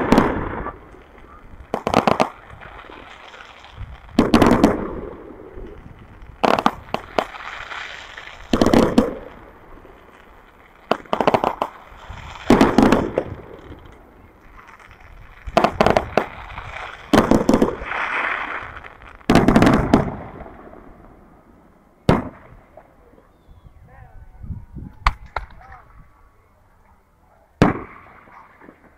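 Aerial fireworks shells bursting one after another: sharp bangs, each trailing off in a rolling echo, about every second or two, growing sparser toward the end.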